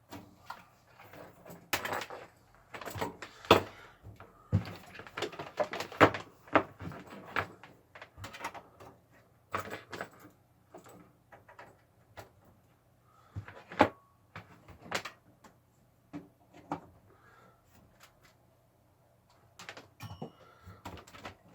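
Irregular clicks, knocks and rattles as keyboard and mouse cables are handled and plugged into a desktop PC tower. There is a quiet pause a little before the end.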